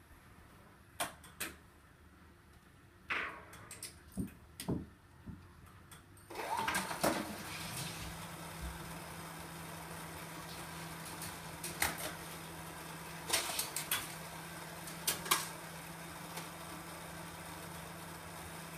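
A marble run and toy-car track in action: scattered sharp clicks and clacks of pieces striking the track. About six seconds in, a small electric motor starts and runs on with a steady hum under further clicks.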